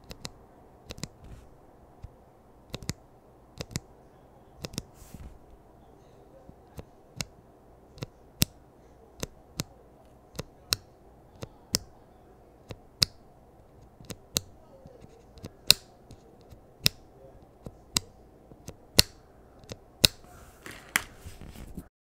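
An uninstalled Gazzew U4 Thock Tactile 68 g mechanical keyboard switch, lightly lubed, pressed over and over with a pencil eraser: a steady run of sharp clacks as the stem bottoms out and springs back, about one to two a second.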